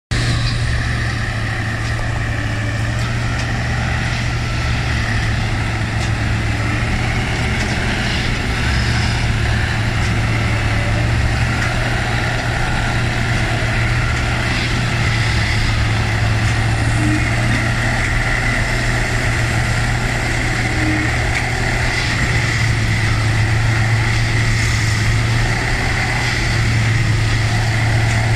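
Plasser & Theurer Unimat 08-475 4S-R track tamping machine running, its diesel engine giving a steady low drone, with faint clanks now and then.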